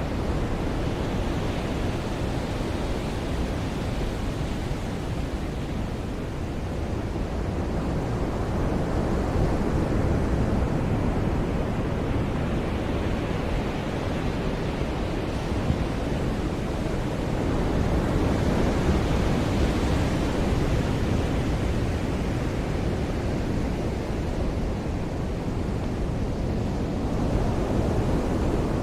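Ocean surf on a beach: a continuous rushing wash of waves that swells and eases several times as waves break and run in.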